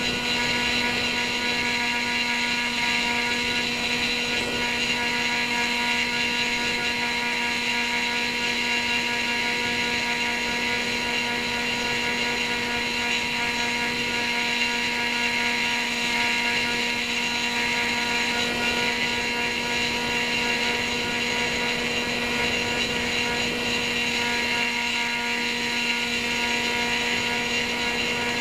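The electric motor and propeller of an E-Uhu radio-controlled model plane running at a steady speed, heard from on board: a steady whine of several tones that holds the same pitch throughout.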